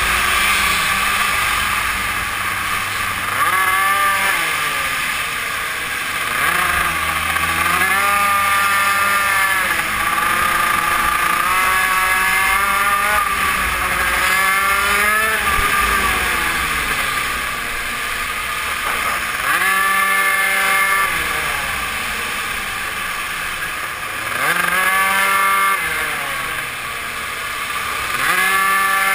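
Super mini moto engine heard onboard at racing pace. It revs up along the straights and drops off into the corners, its pitch climbing and falling every few seconds.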